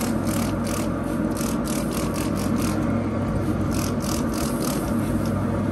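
Hand trigger spray bottle squirting a vinegar-and-water mist onto brisket in quick repeated spritzes, two or three a second, stopping shortly before the end. A lawn mower engine runs steadily in the background throughout.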